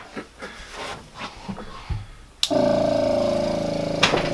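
Light handling clicks, then a small airbrush air compressor switches on with a click about two and a half seconds in and runs steadily, with one more sharp click about a second and a half later.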